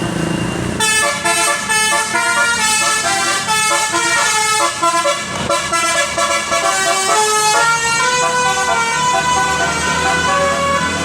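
Tour bus's basuri 'telolet' musical air horn playing a quick melody of changing notes, often several at once. It starts about a second in and keeps going.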